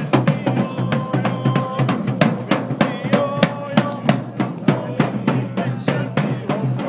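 Marching drums beating a steady rhythm of many strokes a second, with a melody held over them, as a procession band plays.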